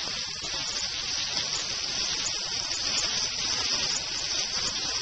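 Steaks and a hamburger patty sizzling steadily in oil on a hot cast iron grill pan over a wood-fired rocket stove, a constant hiss.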